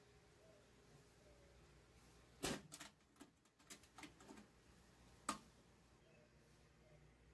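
A few sharp metal clicks and clanks over near silence, the loudest about two and a half seconds in and again about five seconds in: a steel box's lid and metal latch being handled.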